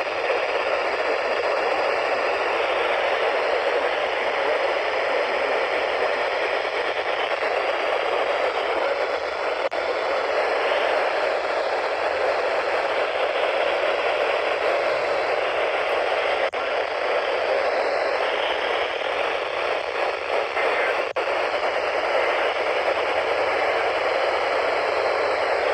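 NOAA Weather Radio receiver giving out steady static from a weak, barely received station, with a few faint clicks.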